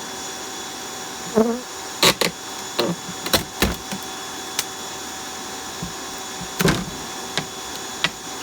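A steady motor-like hum under a series of sharp knocks and thuds as a honeybee hive is pulled apart, the knocks loudest and closest together between about one and four seconds in, with one more near seven seconds.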